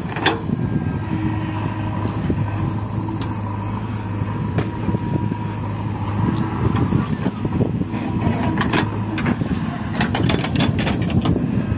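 Diesel engine of a JCB 3DX backhoe loader running under load as it digs, with a steady low hum through the first half. Scattered knocks, then a run of knocks and rattles near the end as the bucket scrapes and scoops soil.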